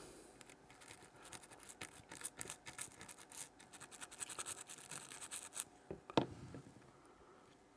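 Quick, faint scratchy scrubbing strokes on a small circuit board as flux residue is cleaned off after reflowing; the scrubbing stops about two seconds before the end, followed by a single light knock.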